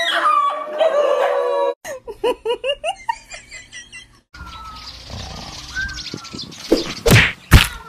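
A high-pitched gliding cry, then a girl's laughter in quick repeated bursts; near the end two loud, sharp thuds.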